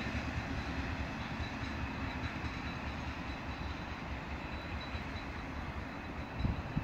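A train's rumble slowly fading as it draws away along the line, with a faint high whine above it. Wind buffets the microphone briefly near the end.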